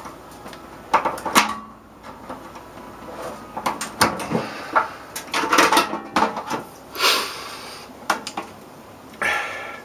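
Knocks, clunks and scrapes against a microwave oven's sheet-metal case as a stubborn power cord is worked and tugged out of it. The handling noises come in irregular bursts about a second or so apart.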